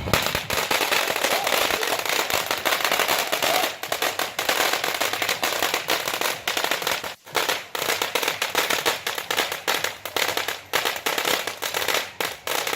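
Fireworks going off in a fast, continuous string of sharp crackling pops, many a second, with a brief break about seven seconds in.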